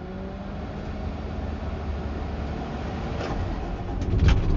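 Diesel engine of a 2023 Peterbilt 548 straight truck being cranked and starting, its low rumble building until it catches about four seconds in. A few sharp clicks come near the end.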